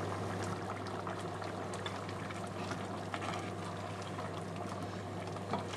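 Risotto rice simmering in chicken stock in a stainless steel pot over medium-low heat, bubbling steadily with many small pops, over a steady low hum.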